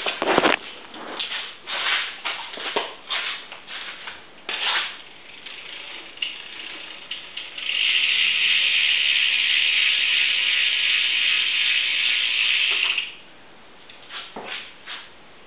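Stock rear hub of a Kink Gap XL BMX freewheeling: its pawls ratchet in scattered clicks, then run as a steady, loud buzz for about five seconds while the wheel coasts, cutting off suddenly.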